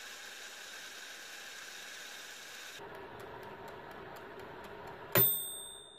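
VonShef baby food maker steaming with a steady hiss. About three seconds in, the hiss stops and its dial timer ticks, about three ticks a second. Near the end a single bell ding rings out: the 30-minute steaming timer has run out and the apples are done.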